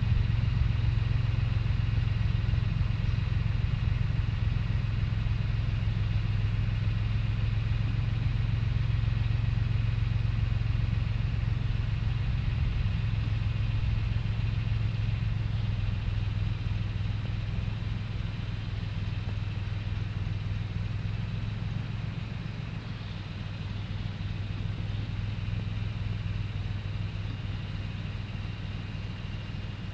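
Tractor engine running with a steady low drone as it pulls a potato planter, growing fainter over the second half.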